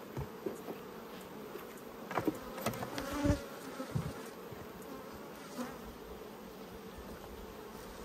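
Honeybees buzzing steadily around an open hive, with a few light knocks and clicks about two to four seconds in.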